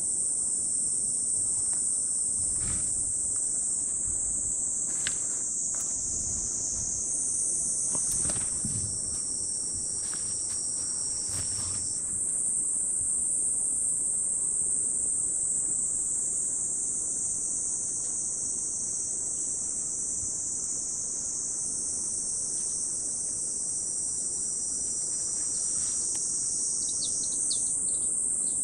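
Dense, steady, high-pitched chorus of summer insects shrilling without a break, its pitch band shifting slightly a few times as different callers come and go. A few soft low knocks sound in the first half.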